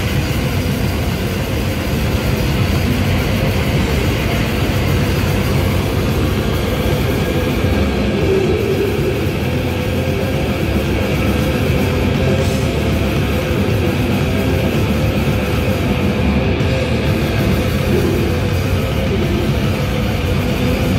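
Loud live grindcore band playing without a break: distorted electric guitar and bass over drums.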